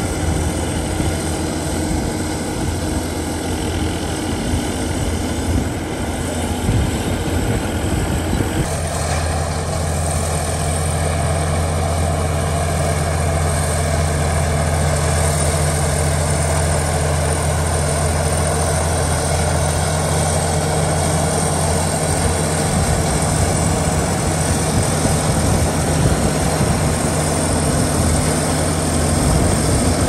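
Heavy diesel earthmoving machinery running steadily with a low engine drone. The sound shifts abruptly about nine seconds in and settles into a stronger, steadier low hum.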